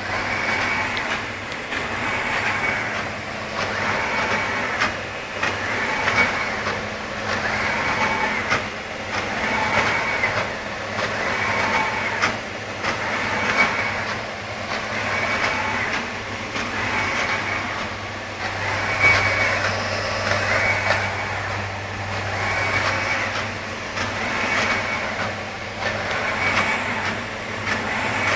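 Océ Arizona 350 XT UV flatbed printer printing: the print carriage whirs as it sweeps back and forth across the bed, rising and falling about once a second over a steady low hum.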